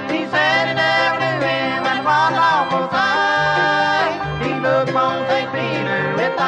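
Bluegrass string band playing an instrumental break, with fiddle, banjo, mandolin, guitar and upright bass. A held, sliding fiddle line leads over a steady bass line that changes notes about every second.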